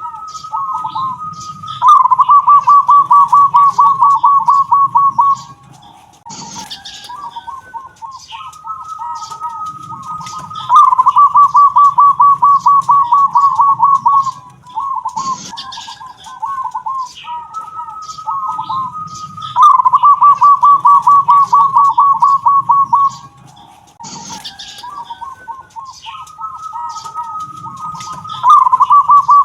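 A local zebra dove (perkutut) with a 'kung' voice repeating its cooing song about every nine seconds. Each phrase is a few short lead-in coos, then a long, fast run of cooing notes lasting about three and a half seconds. Faint high chirps from other birds and a few short knocks come between the phrases.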